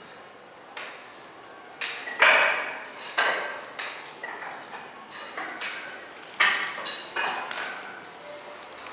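Irregular sharp clacks and knocks, one or two a second, some with a brief ring, from a worker rolling coating onto a concrete floor with a long-poled paint roller and stepping across the wet surface. The loudest clacks come a little past two seconds and again past six.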